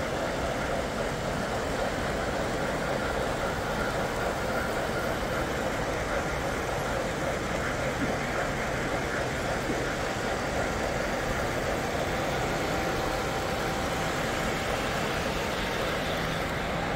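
Steady background din with no distinct events, a continuous even rumble and murmur that stays at the same level throughout.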